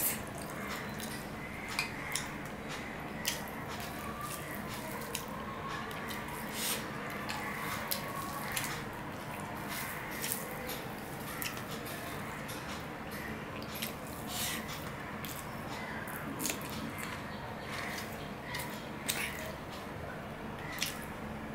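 Close-miked hand-eating sounds: a man chewing rice and curry and working it with his fingers on a steel plate, giving irregular wet smacks and clicks over a steady background hiss.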